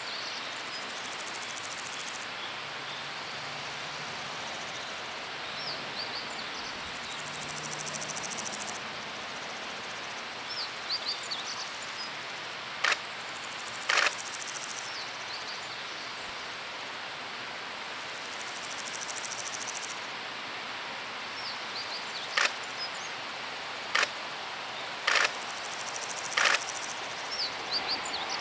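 Summer countryside ambience: insects trilling in pulsing spells of a couple of seconds, short high bird chirps now and then, and about six sharp clicks, the loudest sounds. In the last second the running noise of an approaching electric train starts to rise.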